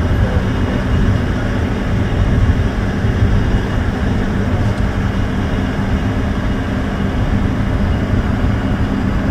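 Cabin noise of a Tata tourist bus cruising on a highway: engine and road noise make a steady low rumble with a constant hum.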